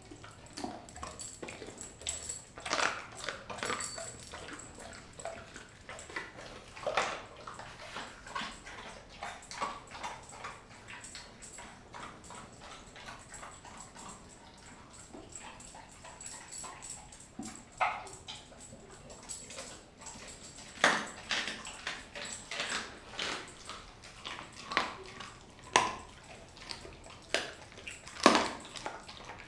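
Doberman eating raw beef tail and chicken from a stainless steel bowl: irregular wet chewing and sharp crunches as it bites through meat and small bones, with louder crunches near the end.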